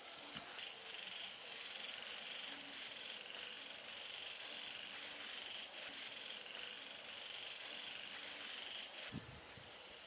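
Steady, high-pitched night chorus of calling insects, starting about half a second in and stopping shortly before the end. A soft low thump follows near the end.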